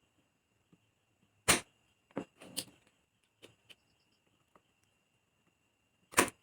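Spring-loaded desoldering pump firing: two loud sharp snaps of the released plunger, about a second and a half in and again just after six seconds, with a few smaller clicks between as the pump is handled and re-cocked while the solder is sucked off the IC's pins.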